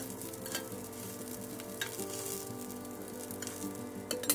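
Tuna and potato kababs sizzling as they shallow-fry in oil in a cast-iron skillet, with small spattering crackles and a spatula working in the pan. A sharp knock comes near the end.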